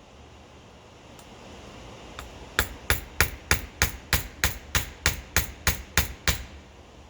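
A hammer striking in a quick, even run of about a dozen sharp blows, roughly three a second, starting a little over two seconds in. The blows are driving a star nut down into a bicycle fork's steerer tube.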